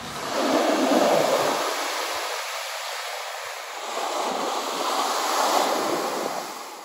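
Ocean surf breaking and washing up a sandy beach, a steady rush of water that swells about a second in and again around five seconds.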